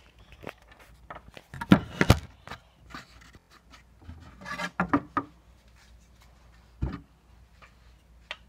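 Scattered knocks, clicks and rubbing from a length of wood and a hockey stick being handled; the loudest knocks come about two seconds in.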